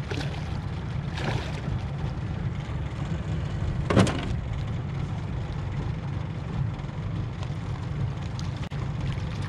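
A hooked trairão splashing at the surface beside an aluminium boat, most clearly about a second in, over a steady low rumble. A single sharp knock about four seconds in is the loudest sound.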